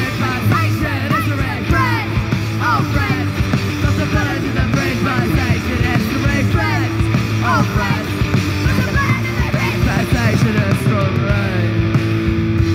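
A live rock band playing loud: distorted electric guitar, bass and drums, with a singer yelling into the microphone. Short sliding notes run through it, and near the end one note is held steady.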